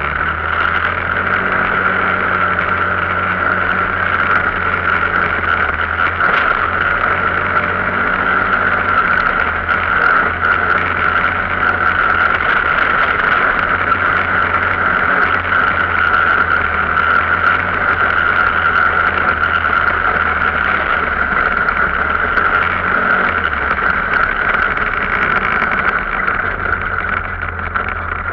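Arctic Cat off-road vehicle's engine running steadily while under way.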